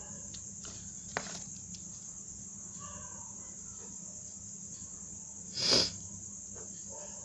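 Ballpoint pen writing on paper over a steady high-pitched background hiss, with a few faint clicks and one short, louder rush of noise near the end.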